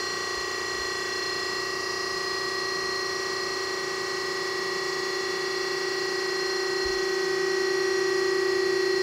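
Klaus Multiparking G63 pit parking lift's hydraulic drive running steadily while it lifts the stacked parking platforms, an even whine that grows a little louder about three-quarters of the way through.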